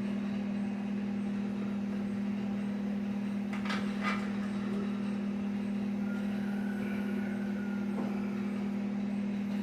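A steady low machine hum at an even level, with a couple of light metallic clinks about three and a half seconds in.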